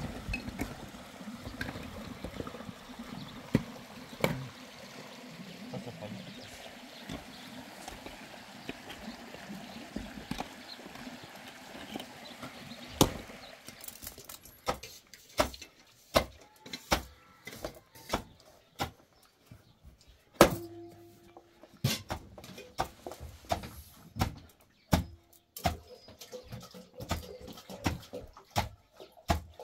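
A steady rush of flowing water with a few scattered knocks. Then a wooden pestle pounding grain in a tall metal mortar, making sharp metallic knocks at an uneven pace, with the mortar ringing briefly after one hard strike.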